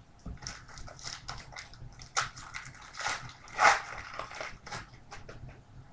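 Foil wrapper of a 2012 Topps Finest football card pack crinkling and tearing as it is ripped open by hand: a run of crackles, the loudest about two thirds of the way through.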